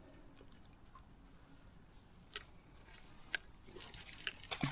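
A few sharp clicks and light handling noises from a fishing rod and spinning reel just after a cast, over a faint hiss of flowing river; the clicks come closer together near the end.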